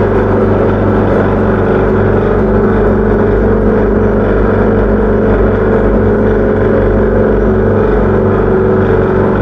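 Electric motor driving a cutaway working model of a steam locomotive's piston, valve gear and coupled wheels, running with a loud, steady hum.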